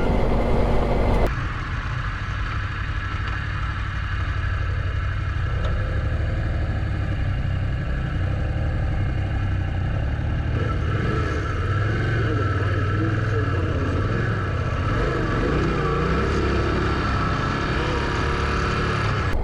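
Adventure motorcycle running steadily along a gravel road, its engine mixed with road and riding noise, and the sound changing abruptly about a second in.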